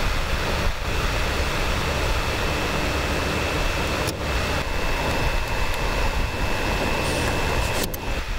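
Dometic rooftop RV air conditioner running steadily, with a steady high tone over its noise. Two sharp clicks come about four and eight seconds in as the plastic shroud is handled.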